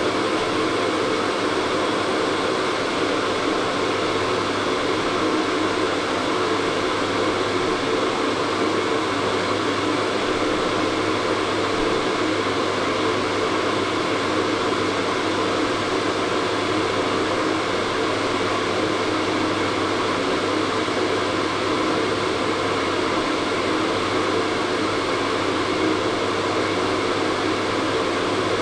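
Hair dryer running steadily: a constant rush of blown air over an even motor hum, unchanging throughout.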